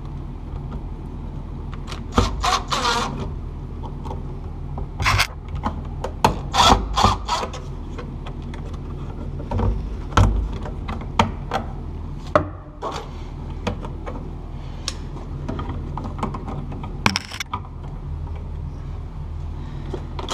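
Electrical wires and a light switch being worked into a wall box by hand: irregular scraping and rubbing with scattered sharp clicks and knocks, over a steady low hum.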